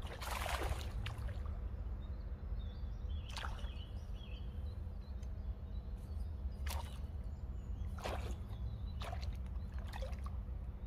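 Water splashing and dripping in short separate bursts, about six over the stretch, the first and broadest right at the start, over a steady low rumble.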